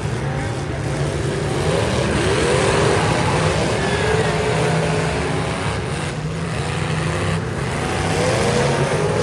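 Several demolition derby cars' engines running and revving, their pitch rising and falling over one another against a dense rumble.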